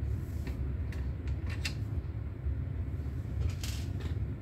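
A few light clicks and taps of receiver parts being handled during disassembly, the last few bunched together near the end, over a steady low hum.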